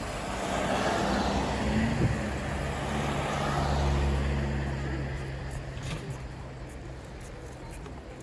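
A road vehicle driving past: engine hum and tyre noise swell over a few seconds and then fade away.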